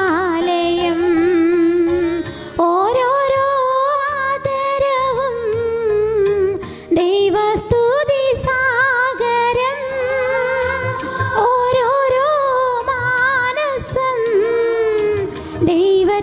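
Music: a hymn sung by one voice with instrumental accompaniment. The voice holds long, wavering notes.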